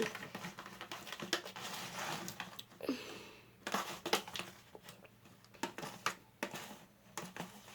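Thick body-wash-and-shampoo slime being stirred in a container: faint, irregular sticky squelches and small clicks.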